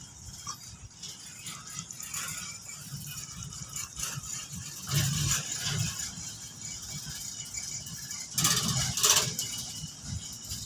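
Empty flat freight wagons rolling along the track, their wheels, couplings and loose metal fittings rattling and clinking unevenly, louder for a moment about eight and a half seconds in.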